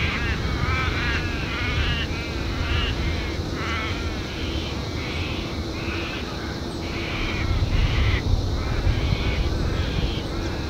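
Birds calling in quick runs of short, repeated chirps and caws over a steady low rumble.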